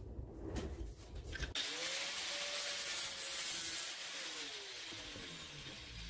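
A few light knocks, then a small angle grinder starts and cuts through a thin metal broom-handle tube with a steady hiss and whine. About four seconds in it is switched off, and its whine falls away as the disc spins down.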